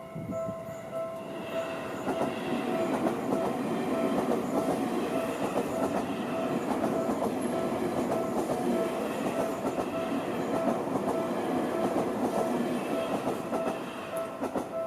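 A Seibu Ikebukuro Line train passing through a level crossing, its wheels clattering over the rail joints. The clatter builds about a second in and eases near the end, while the crossing's warning bell keeps ringing and stops right at the end.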